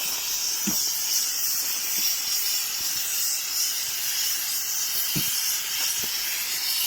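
Steady hiss of steam escaping from a pressure cooker, with a couple of soft knocks, about a second in and again near the end.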